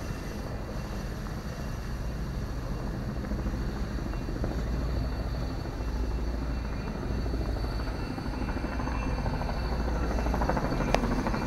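Steady engine drone: a low hum with a faint high whine, getting a little louder toward the end.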